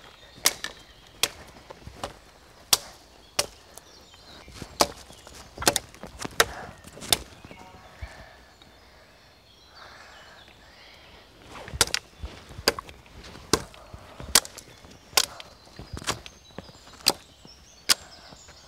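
Hatchet chopping branches off a wooden pole: sharp wooden strikes about every half second to a second, in two runs with a pause of a few seconds near the middle.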